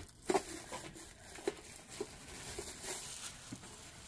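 Rustling and crinkling of packaging as a boxed light is handled and turned over, with a few light knocks, the sharpest about a third of a second in and another about a second and a half in.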